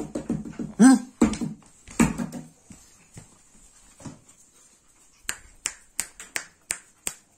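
Pug puppies and an adult pug playing on a tiled floor, with a short yelp about a second in and some scuffling. In the last two seconds comes a run of sharp, evenly spaced clicks, about three a second.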